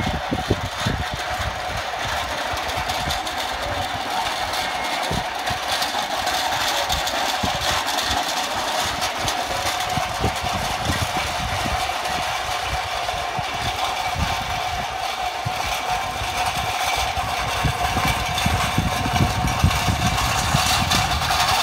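A steady engine-like mechanical drone, with irregular low thumps throughout.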